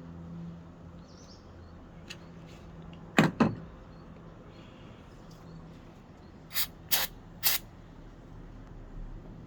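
Sharp clicks and knocks from handling the plastic parts of a washing machine water inlet valve being dismantled: two close together about three seconds in, then three more about half a second apart a few seconds later, over a low steady hum.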